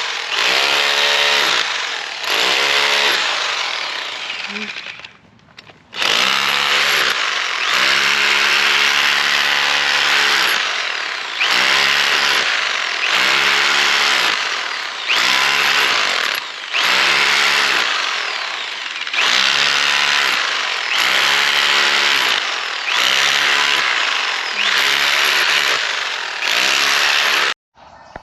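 Bauer 4-in-1 hammer drill hammering in about fifteen short trigger bursts, the motor's pitch sagging in each burst as it bears into the wall. There is a short pause about five seconds in, and it stops abruptly near the end.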